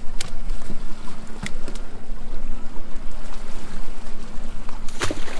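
Fishing boat's engine running steadily, with a few sharp knocks, the loudest about five seconds in.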